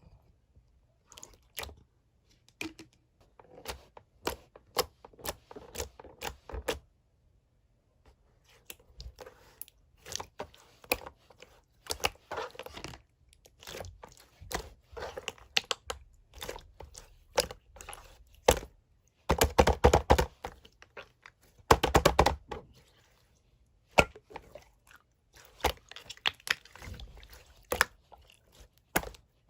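Close-up crunching, crackling and clicking in irregular clusters of sharp taps, with two dense flurries about two-thirds of the way through.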